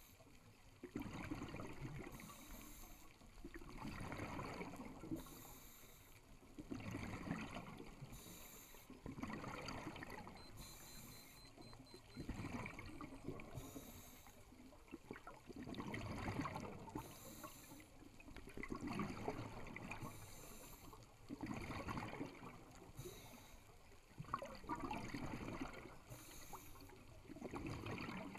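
Scuba diver breathing through a regulator underwater: a short hissing inhale about every three seconds, each followed by a longer rush of exhaled bubbles.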